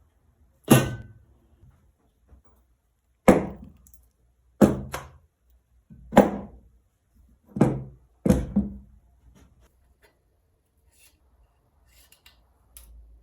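Six separate heavy knocks, irregularly spaced over about eight seconds, each ringing out and dying away within about half a second, followed by a few faint light ticks.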